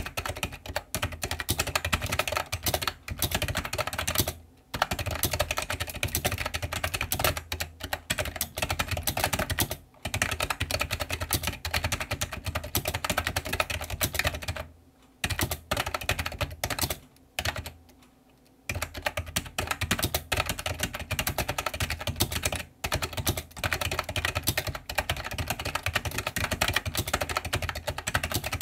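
Fast, continuous typing on an iMAGiC G-Keyboard II Echo plunger keyboard: a dense run of key clicks and bottom-out clacks, broken by a few brief pauses, the longest about eighteen seconds in.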